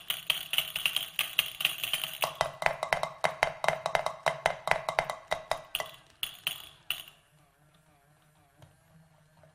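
Music played on a struck instrument: a quick run of sharp, pitched strikes, several a second, that stops abruptly about seven seconds in, followed by near silence.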